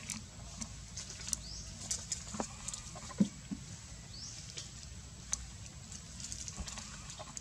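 Outdoor ambience around macaques on leaf-littered ground: scattered sharp ticks and rustles, a few short high rising chirps, and one louder short low sound about three seconds in.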